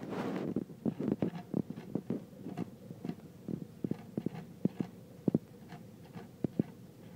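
Cat lapping at the metal drinking tube of a rabbit water bottle: a quick, irregular run of small wet clicks and taps, about three a second, as its tongue works the tip of the spout.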